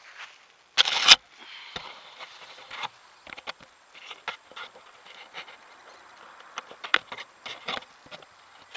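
Rustling, scraping and knocking as a hand picks up a Mobula 7HD tiny whoop drone from the grass, handled right against its onboard camera's microphone. A loud rustle comes about a second in, then scattered clicks and knocks; the drone's motors are not running.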